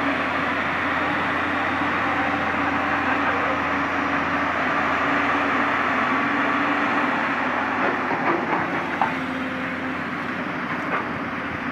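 Komatsu PC200 hydraulic excavator's diesel engine running steadily under working load, with a few sharp knocks near the end.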